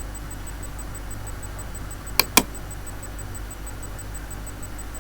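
A computer mouse double-clicked: a quick pair of sharp clicks a little over two seconds in, over a steady low hum.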